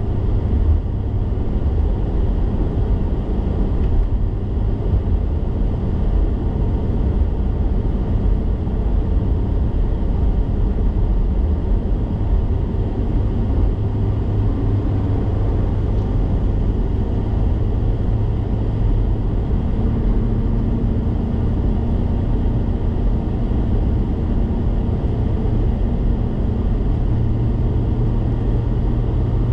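Steady low rumble of a car's engine and tyres on the road, heard from inside the cabin while driving. A steady low hum joins in about two-thirds of the way through.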